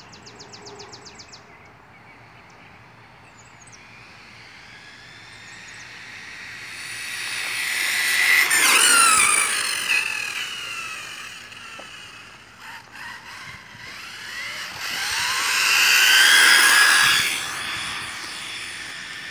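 Electric-converted OFNA Hyper 7 RC buggy making two speed passes. The motor and gear whine rises as the car closes in and drops in pitch as it goes by, first about 9 seconds in and again about 16 seconds in.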